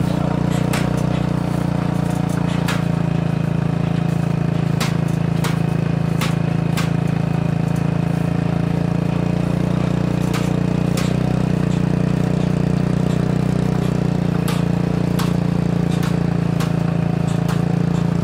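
An engine running steadily: an unbroken low drone, with scattered sharp clicks and rattles over it.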